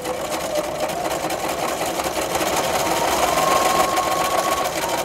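Electric sewing machine running steadily at speed, stitching a zigzag seam through the vinyl and snack-wrapper layers, with a rapid even needle beat. It stops right at the end.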